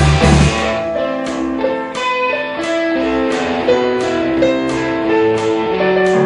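Electric guitar and Yamaha digital piano playing together. A heavy, loud passage drops away about half a second in, leaving quieter held notes under a steady pulse of picked notes.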